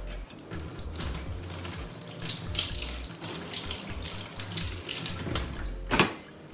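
Kitchen tap running, with water splashing over a plantain and hands as the fruit is rinsed under it at the sink. There is one sharp knock about six seconds in.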